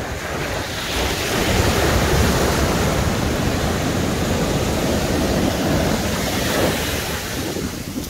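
Ocean surf breaking and foaming up the sand at the water's edge: a steady rush of noise that swells about a second in and eases near the end.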